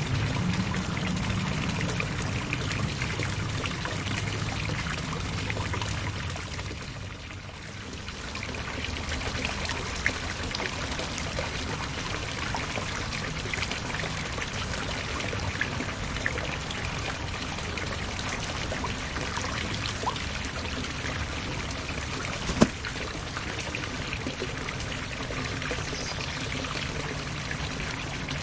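Water pouring and trickling steadily into a backyard pond. The flow dips briefly about seven seconds in, and a single sharp click stands out a little over twenty seconds in.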